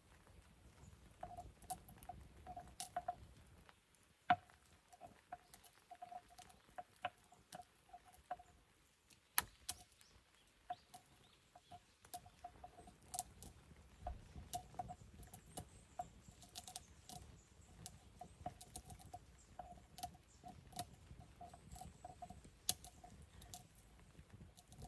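Wood campfire crackling: irregular sharp snaps and pops, with a few louder cracks about 4, 9 and 23 seconds in. A faint, stuttering squeak runs through most of it.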